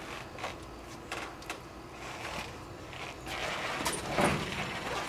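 Scattered light clicks and knocks, with a louder stretch of rustling and handling noise from about three seconds in.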